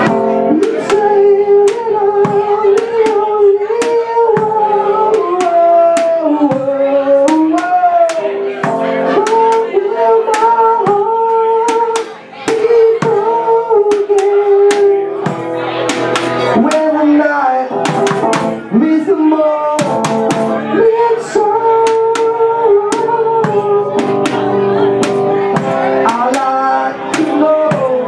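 Live blues jam: a man singing over a strummed electric guitar, with steady sharp hits on a makeshift drum kit of a plastic crate, bucket and tin cooking tray struck with drumsticks.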